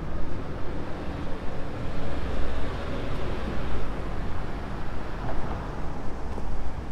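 Street ambience: a continuous noise of passing road traffic, with a deep rumble that swells and fades.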